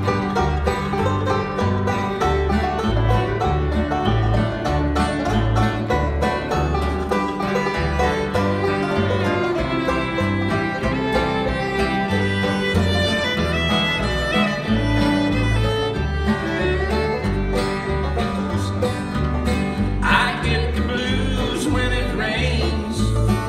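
Old-time string band instrumental break: a fiddle takes the lead over strummed acoustic guitar, banjo and upright bass, with a steady bass beat underneath.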